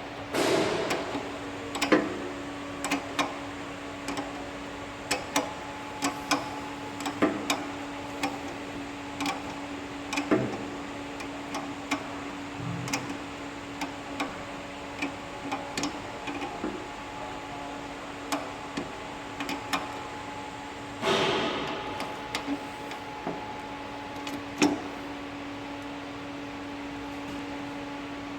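Irregular light metallic clicks and knocks of hand tools and fittings being handled on a two-post lift's hydraulic cylinder and hoses, over a steady hum. Two brief louder rushes of noise come at the start and about twenty seconds in.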